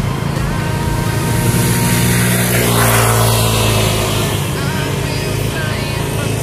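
A motor engine running steadily, growing louder for a moment about three seconds in as if passing close by.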